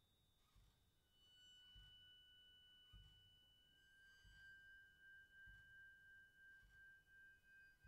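Quiet solo percussion: pure, sustained high ringing tones from tuned metal percussion overlap and hold, a new one entering about a second in and a stronger one about four seconds in. Soft low drum thuds fall about once every 1.2 seconds beneath them.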